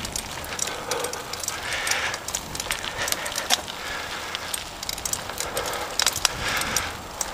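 Bicycle tyres crunching over a loose gravel and dirt track on a climb, with many sharp crackles and clicks from grit and small stones.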